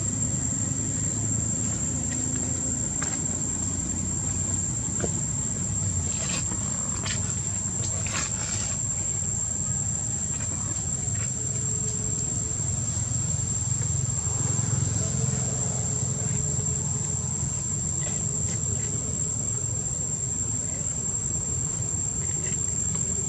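Insects droning in one steady high-pitched tone over a steady low rumble, with a few short clicks about six to nine seconds in.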